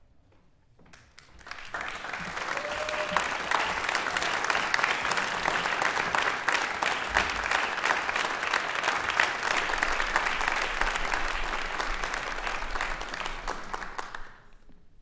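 Audience applauding: clapping starts about a second in, swells quickly to a steady level, and dies away near the end.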